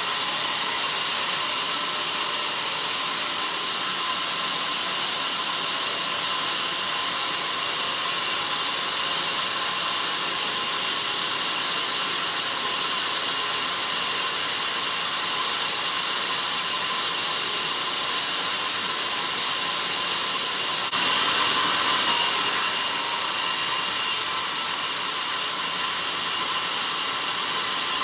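Band sawmill blade cutting through a log: a steady, high hiss of the saw running in the wood. It grows louder for a few seconds about three-quarters of the way through.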